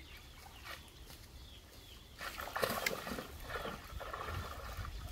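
Shallow muddy pond water sloshing and splashing as a bamboo plunge basket is worked down into it and a man wades, louder from about two seconds in.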